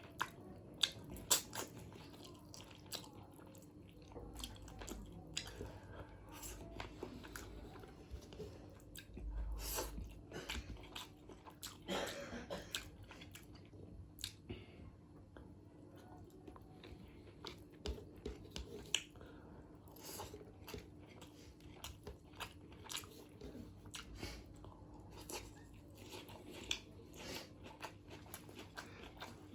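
A person eating chicken biryani: chewing and biting, with many short sharp mouth clicks and smacks, the loudest about a second in. A faint steady hum runs underneath.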